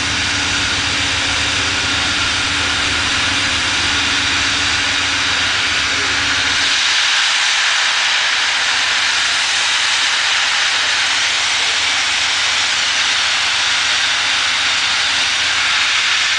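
Southern Pacific 4449, a 4-8-4 streamlined steam locomotive, standing and venting steam in a steady hiss. A low steady rumble underneath cuts off about seven seconds in, and the hiss carries on alone.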